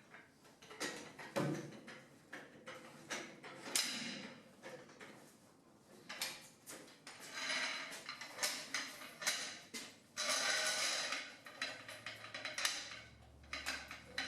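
Metal shop-work sounds: scattered knocks and clanks, with two longer stretches of scraping or rubbing partway through.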